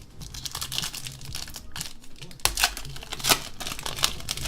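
Trading-card pack wrappers and cards being handled: irregular crinkling and rustling with a few sharper snaps, about two and a half, three and a quarter and four seconds in.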